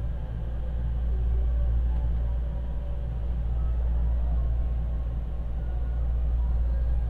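Inside a JR West 225-series electric train slowing to a stop at a station platform: a steady low rumble from the running gear and wheels, with faint tones above it.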